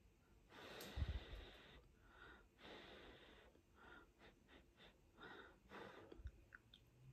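Faint breathing through the nose and small wet mouth clicks as a toothless eater chews a mouthful of cheesy pasta, with a soft low knock about a second in.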